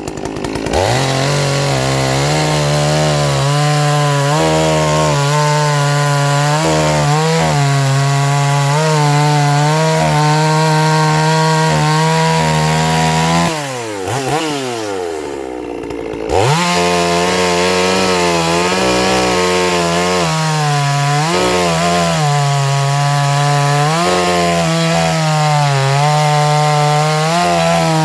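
Neo-Tec NS872 72cc two-stroke chainsaw running at full throttle through wood, its engine pitch dipping and recovering as the chain loads up. About thirteen seconds in, the revs fall away for roughly three seconds, then the saw is opened up again and cuts on.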